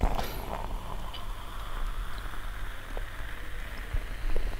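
Coca-Cola poured from a can into a glass, fizzing and hissing steadily as the soda foams up in the glass, with a few faint ticks of bursting bubbles.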